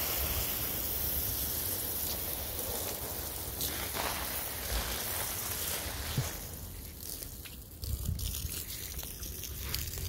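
Water spraying onto a garden bed to soak it, a steady hiss that thins out about six and a half seconds in.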